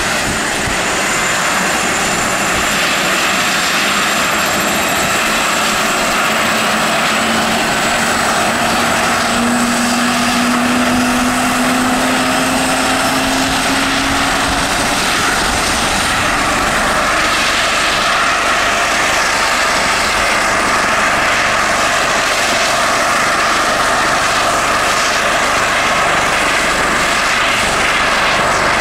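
Eurocopter AS365 Dauphin helicopter's turbine engines running on the ground with the rotor turning, giving a high steady whine over a loud rushing noise. A tone climbs slowly in pitch through the middle, and a low rotor drone strengthens from about halfway.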